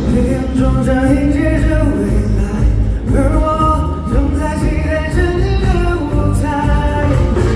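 Loud concert music: a singer holding drawn-out notes over a band with heavy bass.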